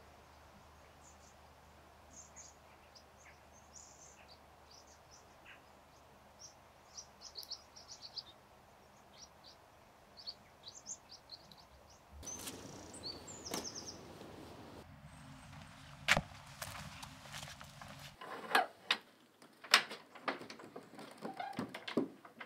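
Quiet outdoor ambience with small birds chirping now and then. About halfway through the background grows louder, and in the last six seconds come a series of sharp clicks and knocks: an iron door latch being worked and a wooden door opening.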